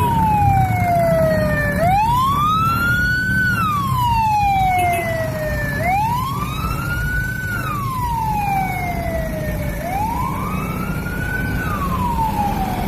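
A wailing siren, rising and falling slowly about every four seconds, over a steady low rumble.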